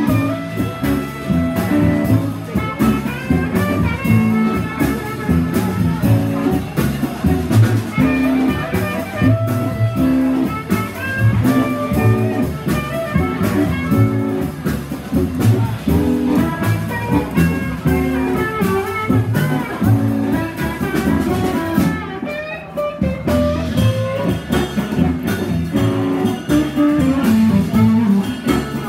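Live blues band playing an instrumental stretch: guitar lines bending over a steady drum and bass groove, through the PA.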